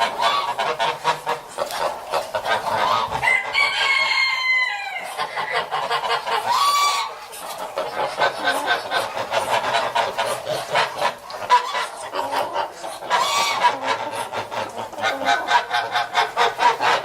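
A flock of geese calling in rapid, overlapping cackling chatter, with a few longer gliding honks standing out.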